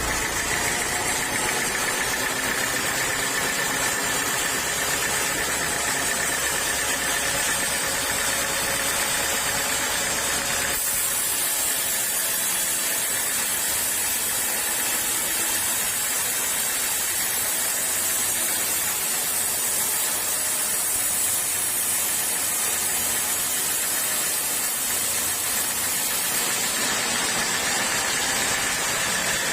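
Sawmill saw running steadily. About eleven seconds in, the low hum drops away and a higher hiss comes up; near the end it returns to the earlier sound.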